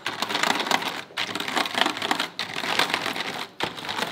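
Computer keyboard keys clattering as a lump of slime cleaning gel is pressed and rubbed down over them to lift dust from between the keys. The clatter comes in stretches with short breaks about every second.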